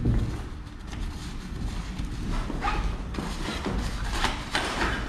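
Heavy boat-tent fabric and its carry bag rustling and flapping as they are handled, with a dull thump at the start and a few sharper rustles later on.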